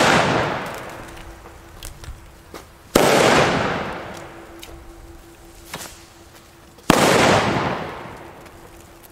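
Xplode Superböller firecrackers going off one at a time: a sharp, loud bang about three seconds in and another about seven seconds in, each followed by an echo that fades over a second or so, with the fading echo of an earlier bang at the start. The reports are clean ('sauber'), a sign of the reworked new batch.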